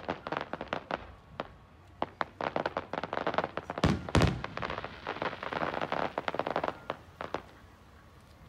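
Aerial fireworks going off: rapid crackling pops from the bursting shells, with two heavy booms about four seconds in. The crackling dies away near the end.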